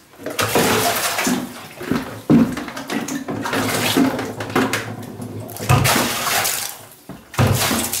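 Water poured from a bucket into a front-loading washing machine's drum, splashing in several gushes with short breaks between them.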